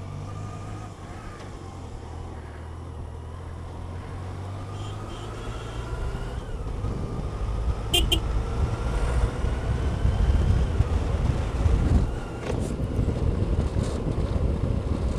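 Touring motorcycle on the move, heard at the rider's helmet: a steady engine hum and wind rush, turning louder and rougher from about six seconds in as it picks up speed, with a faint rising whine. A short high beep sounds about eight seconds in.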